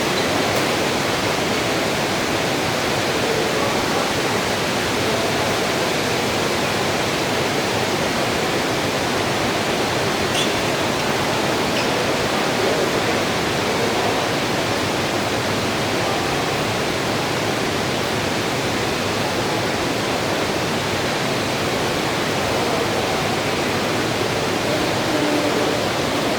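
Steady heavy rain, an even rushing hiss.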